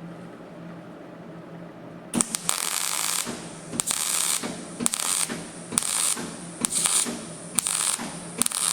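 Welding arc on thin sheet-steel sill panel crackling in about seven short bursts, each around half a second, starting about two seconds in: stitch-welding between tacks, pausing between bursts to let the panel cool so the weld doesn't blow a hole.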